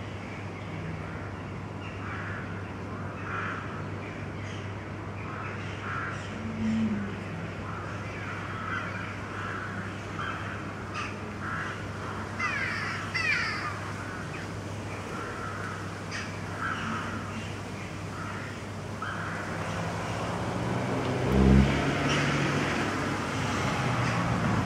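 Harsh bird calls like crows cawing, repeated every second or so over a steady low hum, with a short loud thump about three-quarters of the way through.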